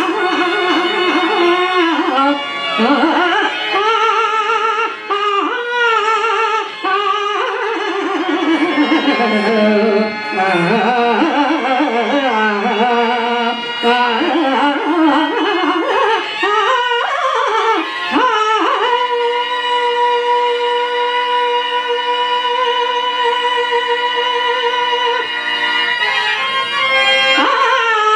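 A solo singer sings a Telugu stage-drama padyam (verse) in a long, ornamented melodic line over instrumental accompaniment. About two-thirds of the way through, a steady held note from an accompanying instrument sustains for several seconds before the melody returns.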